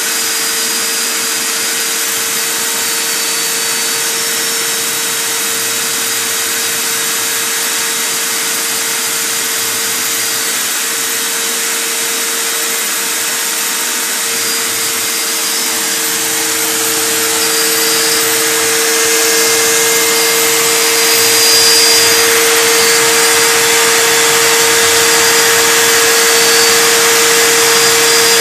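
CNC gantry router running, its spindle giving a steady high whine over a constant hiss of machining noise, getting somewhat louder about two-thirds of the way through.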